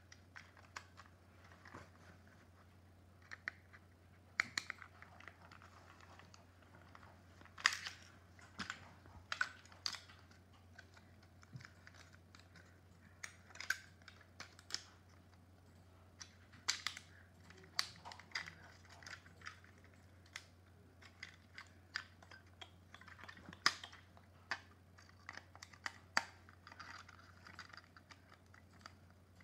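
Irregular clicks and taps of hard plastic parts and a small screwdriver handled while a cordless phone base unit is taken apart, its casing and circuit board knocking together. A faint steady low hum runs underneath.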